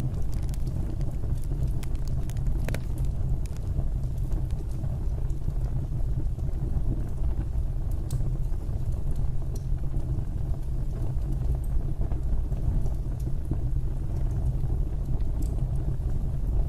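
Fire burning in a fireplace: a steady low rumble of the flames with a few sparse crackles and pops.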